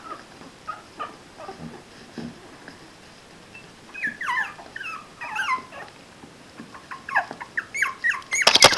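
Four-week-old puppies whimpering and squealing in short calls that fall in pitch. The calls are sparse at first and come thicker and louder from about halfway through. A quick burst of sharp knocks sounds at the very end.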